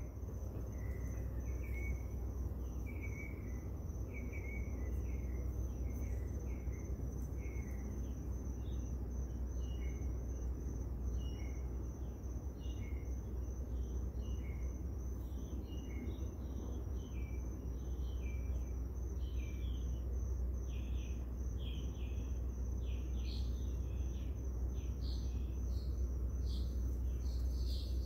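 Night insects: a steady high cricket trill with many short chirps over it, and a low steady rumble underneath.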